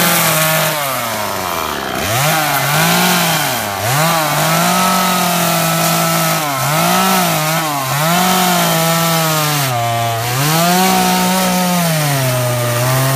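Two-stroke chainsaw cutting into ash wood, revved up and eased back over and over as the cuts are made. It drops back to a low idle several times, about two seconds in, just before four seconds and around ten seconds.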